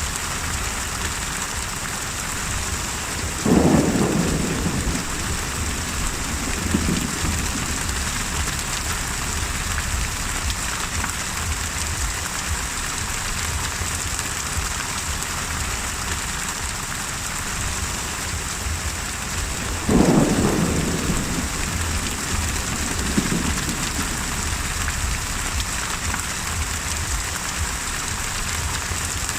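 Steady heavy rain from a thunderstorm, with a thunderclap about three seconds in and another near the twentieth second, each followed a few seconds later by a softer rumble.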